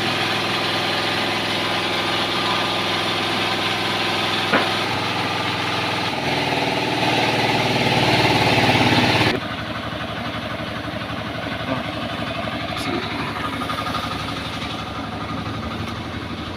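An engine running steadily at idle, its hum growing a little louder and then dropping back to a quieter idle about nine seconds in.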